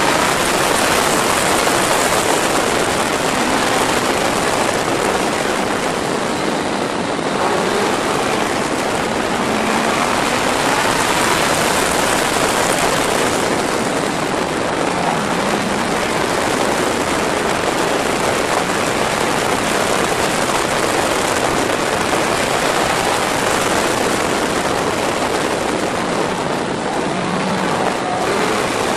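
Steady rush of wind over a Yamaha motorcycle's handlebar-mounted camera while riding. Underneath it, the engine's note rises and falls faintly through the bends.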